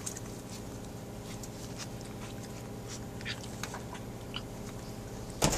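A puppy playing at a person's hand: soft scuffling and handling noise with a few brief high squeaks, over a steady low hum. A sharp knock comes near the end.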